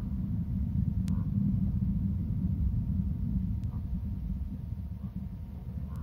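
Wind rumbling steadily on an outdoor nest-camera microphone, with a few faint short chirps or ticks above it.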